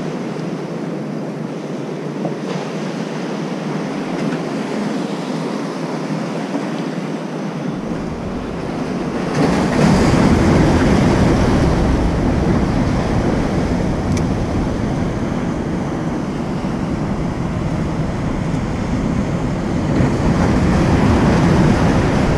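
Ocean surf and wind on the microphone, a steady rushing noise that gets louder and deeper about eight to nine seconds in.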